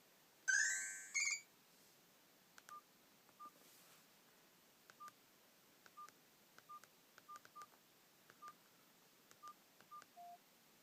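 A Nokia 105 ringtone plays for about a second with rising notes and is cut off. Then the phone's keypad beeps about ten times at irregular intervals as its keys are pressed, each short beep with a faint button click just before it, and one lower-pitched beep near the end.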